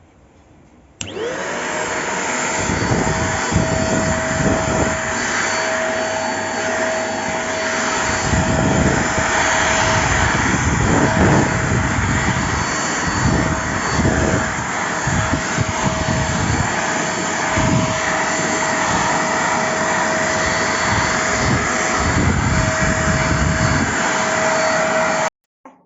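Deerma DX115C handheld vacuum cleaner switched on about a second in: its motor spins up quickly to a steady whine over a rush of air, with an uneven low rumble underneath. It cuts off suddenly shortly before the end.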